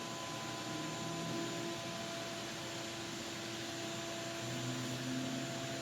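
Electric floor sander running steadily: an even mechanical noise with low hum tones that come and go as it works.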